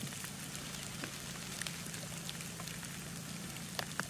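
Faint little ticks and scrapes of a Scandi-ground carving knife making a rolling cut at the tip of a green wooden stick, a few scattered ones with two sharper ticks near the end, over a steady low hiss and hum.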